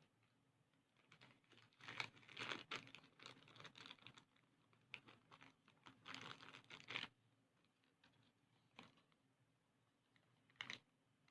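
Quiet clicking and rustling of something being handled, in dense clusters for several seconds, then two single clicks near the end.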